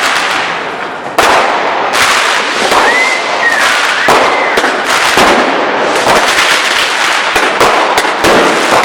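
Consumer fireworks and firecrackers going off in a dense, continuous crackle of bangs, with a sudden loud burst about a second in. Two short whistling tones rise and fall around three and four seconds in.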